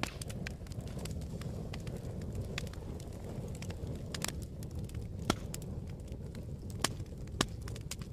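Wood fire in a fireplace crackling: a low, steady rumble of burning logs under scattered sharp snaps, with three louder pops in the second half.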